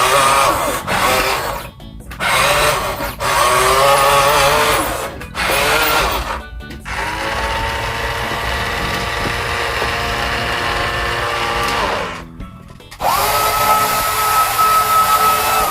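Small electric motors of remote-control toy construction vehicles whining in several runs with short stops between them. The pitch shifts during the first few seconds, then holds steady. A higher steady whine starts near the end.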